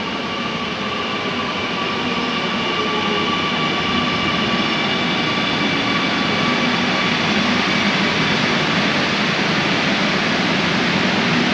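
Delhi Metro train pulling into the platform and slowing, a steady rumble of wheels and running gear with a thin electric whine, growing louder as the carriages draw alongside.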